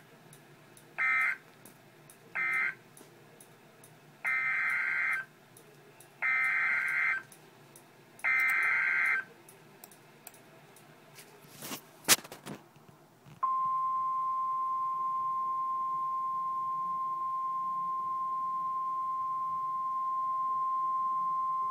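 Emergency Alert System SAME header: warbling digital data tones in five bursts, two short and then three about a second long. A sharp click follows, then a steady single-pitch NOAA Weather Radio warning alarm tone of about 1050 Hz starts about 13 seconds in.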